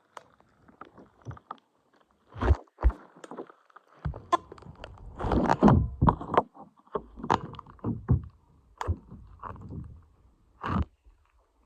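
Irregular scraping and rustling with scattered knocks and thumps close to the microphone, densest from about four to nine seconds in.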